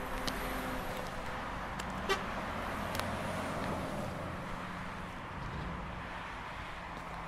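Steady road-traffic noise with a vehicle horn tooting, and one short sharp tick about two seconds in.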